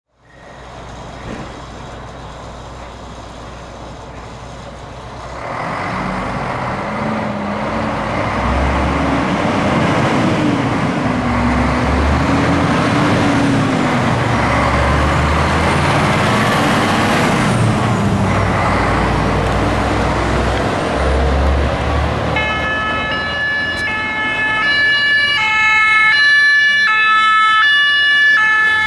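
A fire truck's diesel engine runs low and steady as the truck pulls away. From about 22 seconds in, a two-tone siren starts, switching back and forth between its tones.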